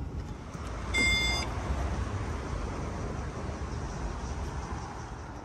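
Inside a Tesla Model S P100D: a short, high electronic chime from the car about a second in, over a steady low cabin rumble.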